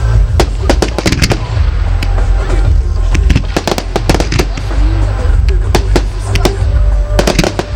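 Fireworks display going off: many sharp bangs and crackles in quick, irregular succession over a heavy low rumble.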